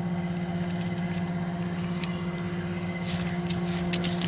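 Steady machinery hum from a neighbouring plastics factory: one low tone with several higher tones above it, unchanging. A few light clicks near the end.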